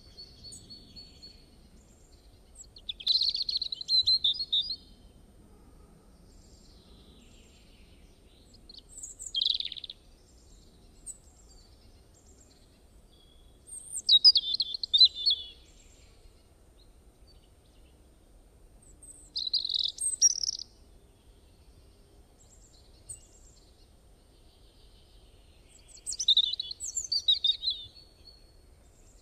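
A songbird singing in five short bursts of high chirping phrases, several seconds apart, over a faint low hiss.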